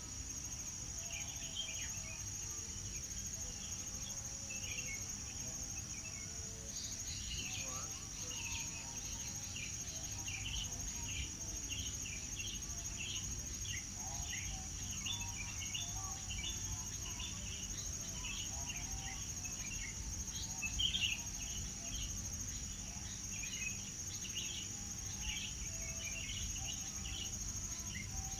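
Birds chirping busily in short, overlapping calls over a steady, high, unbroken insect trill, with a low background rumble.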